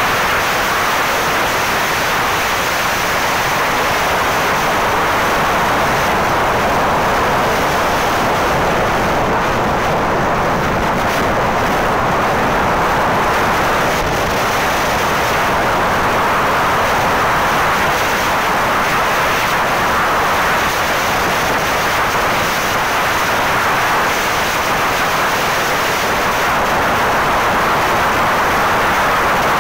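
Loud, steady rush of wind and road noise from a vehicle travelling at speed along the highway, with no engine note or other distinct sound standing out.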